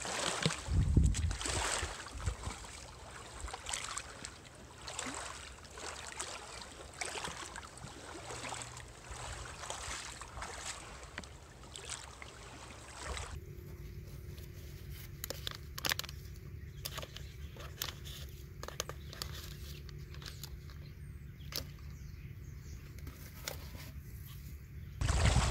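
Boots crunching and shifting on loose river cobbles in irregular steps for about the first half, then a quieter stretch with a faint steady low hum and a few scattered sharp clicks of handling.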